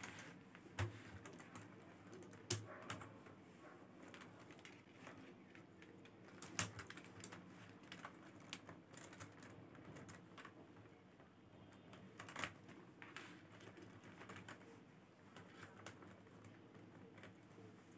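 Faint, irregular small clicks of faceted beads knocking together as a hand-beaded bag is handled and its thread tied, with a few sharper clicks about a second in, two and a half seconds in, near six and a half seconds and about twelve seconds in.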